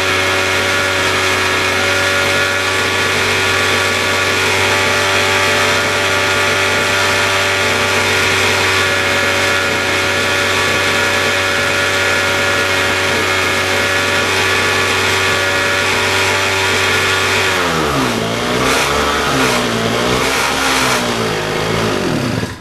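Small lawn mower petrol engine running steadily at high speed, then surging up and down in pitch for its last five seconds or so as its measured tube of fuel runs out. It sputters and cuts off suddenly at the end.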